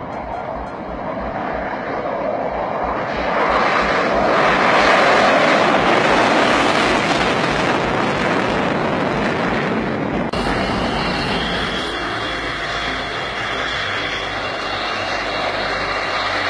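F-16 fighter jet's turbofan engine running: a loud rushing noise that swells over the first few seconds, then changes abruptly about ten seconds in to a steadier rush with a high whine.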